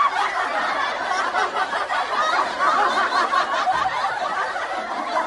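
Several people laughing at once, continuous and overlapping.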